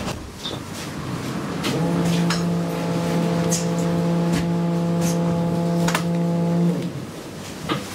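A32 tram's door warning signal: one steady buzzing note held for about five seconds, with clicks and clunks from the tram around it.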